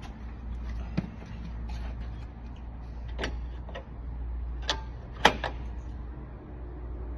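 A few sharp metallic clicks and knocks, one about a second in and a cluster of three between three and five and a half seconds, the last the loudest, as lock parts and a mailbox cover are handled, over a steady low hum.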